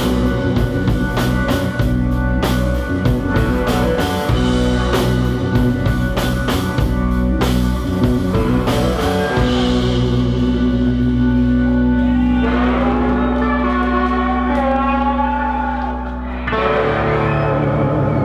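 A live blues-rock band plays electric guitar and drum kit. The drums stop about halfway and a ringing chord is held, with wavering high notes over it. A fresh chord is struck just before the end.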